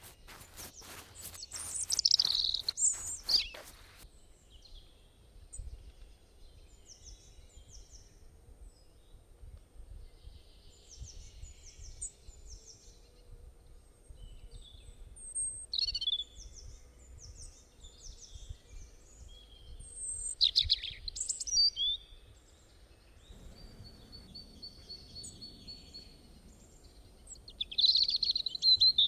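Wild songbirds calling, short high chirps and trills coming in bursts, loudest about two, sixteen, twenty-one and twenty-eight seconds in. Footsteps sound over the first four seconds.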